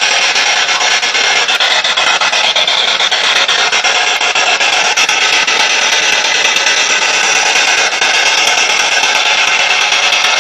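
Loud, steady hiss of static with rapid crackling clicks throughout.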